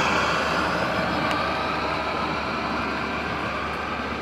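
HO-scale model passenger cars rolling past on the layout track: a steady rolling rumble of small metal wheels on the rails, slowly fading.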